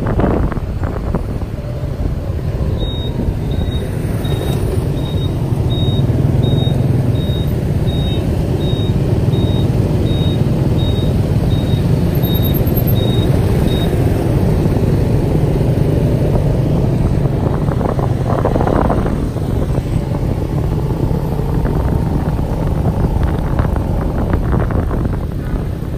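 Car running steadily with a low road rumble. Through the first half, a series of short high beeps sounds about twice a second for about eleven seconds.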